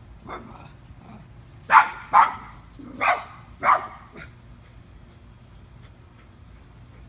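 Small dog barking up at a squirrel in a tree: one soft bark, then four sharp, high barks in two quick pairs about two to four seconds in, and a last faint one.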